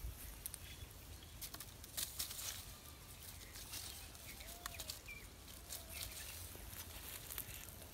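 Quiet outdoor ambience with scattered small clicks and rustles from hands handling fishing gear, and a few faint short bird chirps.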